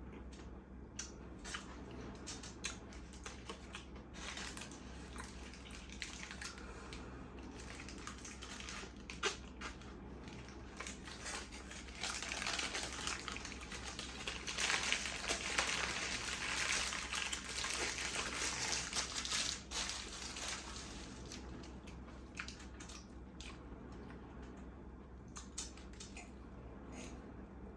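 Close-miked eating of a burger: chewing with many small wet mouth clicks. About twelve seconds in, a louder noisy crinkling or crunching sound lasts some eight seconds, then the quieter chewing resumes.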